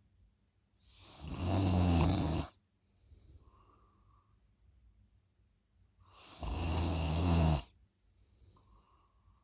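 A person snoring loudly: two long snores about five seconds apart, each followed by a quieter, airy breath.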